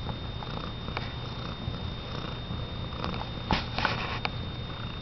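Domestic cat purring steadily, close up. A few soft clicks come in about three and a half seconds in.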